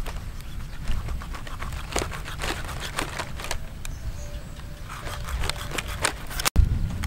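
Knife cutting into a raw stingray's belly laid on dry palm fronds: scattered small clicks and crackles from the blade and the crinkling dry leaves, over a steady low rumble.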